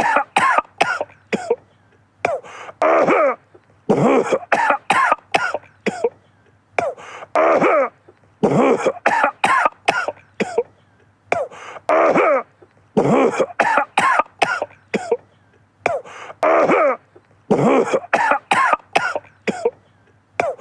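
A man coughing in repeated short fits of several quick coughs, some voiced and rasping like throat clearing. The same sequence of coughs recurs about every four and a half seconds, as a loop.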